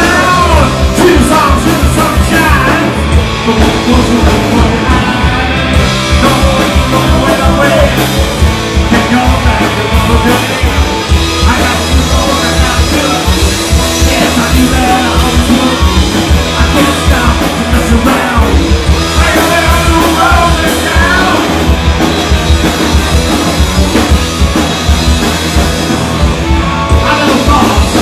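Live punk rock band playing loud and fast: guitars, bass and a driving drum kit, with singing in places.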